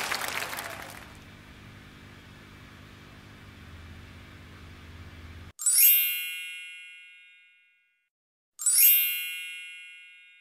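Two bright chime sound effects about three seconds apart, each struck once and ringing out over about two seconds. Before them, applause and music fade out in the first second, leaving a faint low hum.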